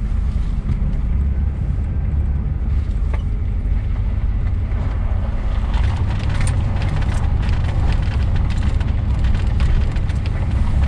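GM three-quarter-ton pickup in four-wheel drive, heard from inside the cab: a steady low engine and drivetrain rumble with road noise. From about halfway through, the tyres crackle and pop over loose gravel as the truck rolls onto the dirt road.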